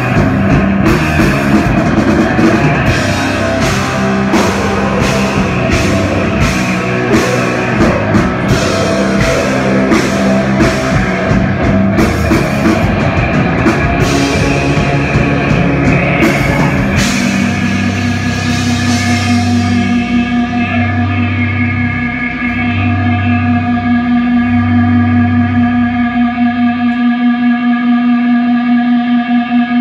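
Metal band playing live: distorted electric guitars, bass and drum kit with dense cymbal hits. About 17 seconds in the drums stop and the song rings out in held guitar feedback over a few long bass notes, ending in a steady drone that throbs near the end.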